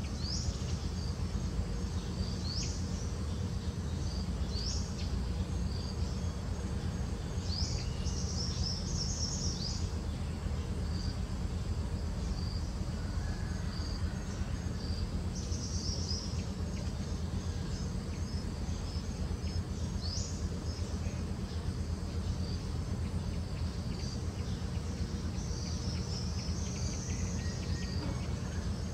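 Outdoor woodland ambience: insects chirring in a steady, high, pulsing trill, with short high chirps that sweep upward now and then, over a steady low rumble.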